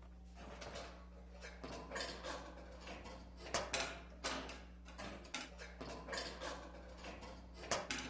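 Irregular metallic clattering, scraping and knocking of a wire coat hanger being worked through the wedged-open top gap of a garage door, rattling against the door and the shield over the opener trolley's release, with two sharper knocks about three and a half seconds and near eight seconds in. The hanger is failing to reach the manual release.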